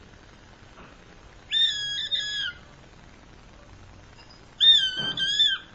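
Red-tailed hawk screaming for food: two calls about three seconds apart, each a high, steady scream about a second long that drops in pitch at its end.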